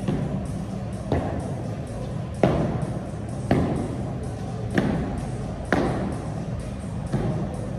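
Feet landing from squat jumps on a gym floor: about six thuds, a little over a second apart, over background music.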